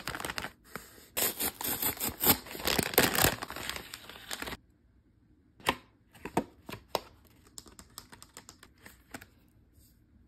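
Kraft-paper mailer being torn open: a dense run of loud paper tearing and crinkling that cuts off abruptly after about four and a half seconds. Then scattered sharp clicks and taps as the plastic pack of highlighters is handled and a highlighter is pulled out.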